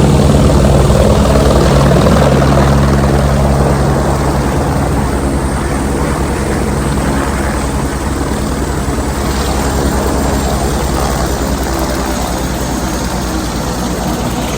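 Helicopter coming in to land: the steady chop of its rotor blades with engine noise underneath. It is loudest at first and fades slowly as it comes down.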